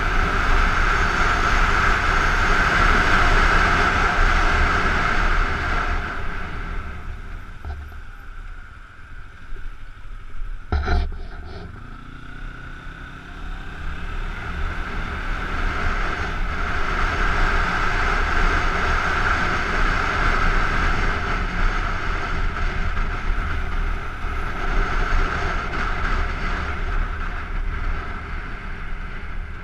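Wind rushing over a helmet-mounted camera, with a Kawasaki Ninja 250's parallel-twin engine running beneath as the motorcycle rides along. The noise eases about a quarter of the way in, there is a brief sharp clack near the middle, then the engine note climbs and the wind builds again as the bike picks up speed.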